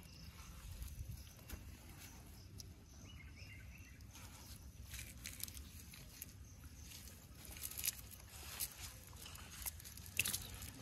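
Faint outdoor ambience: a steady low rumble with scattered small clicks and taps, more of them in the second half.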